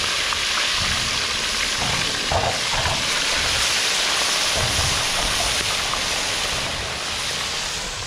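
Fish deep-frying in a large aluminium pot of hot oil over a propane burner: a loud, steady sizzle of bubbling oil that eases slightly near the end.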